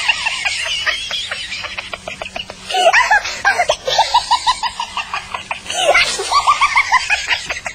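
High-pitched human laughter in quick runs of short repeated syllables, about five a second.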